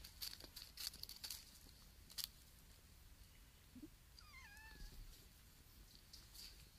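A cat gives one short, wavering meow about four seconds in. Before it, a few soft clicks and taps sound close to the microphone.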